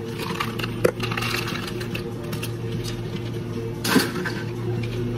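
Ice cubes tipped from a scoop into a tall plastic cup of iced mocha, rattling and clinking for the first couple of seconds, with one louder clatter about four seconds in. A steady machine hum runs underneath.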